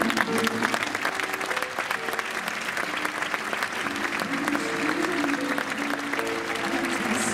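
Audience applauding, with dense, steady clapping over music that holds long sustained notes.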